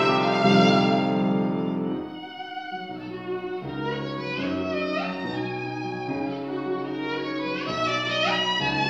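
Viola playing a classical piece with piano accompaniment: loud held notes for about two seconds, then it drops to a softer passage.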